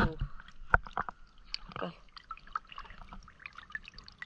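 Water sloshing and small splashes around people wading chest-deep, with scattered sharp clicks, a few of them about a second in.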